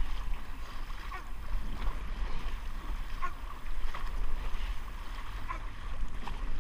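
Dragon boat crew paddling hard in unison: paddle blades splash into the water over and over in time with the strokes, over a steady low rumble of wind buffeting the camera microphone.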